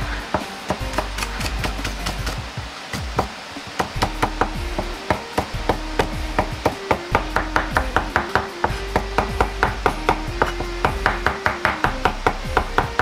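Chinese cleaver chopping garlic on a cutting board. Spaced knocks at first as the cloves are sliced, then a fast, even rhythm of about five strikes a second as the garlic is minced, from about six seconds in.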